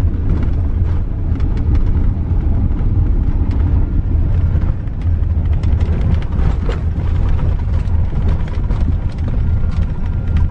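A vehicle driving over a potholed dirt road, heard from inside the cab: a heavy, steady rumble of road and engine, with frequent rattles and knocks as it jolts over the bumps.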